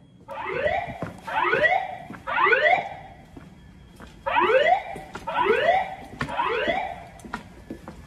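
Notifier voice-evacuation fire alarm speakers sounding a loud rising whoop tone in a temporal-three pattern: three rising sweeps, a pause of about a second, then three more. This is the evacuation alert tone that alternates with the recorded voice message.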